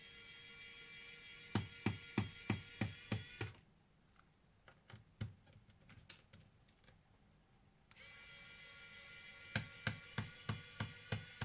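A small electric motor mechanism of a Toshiba BJ65/FS appliance runs twice, for about three and a half seconds each time. Each run has a steady whine and a row of regular clicks, about three a second. A few faint ticks fall in the pause between the runs.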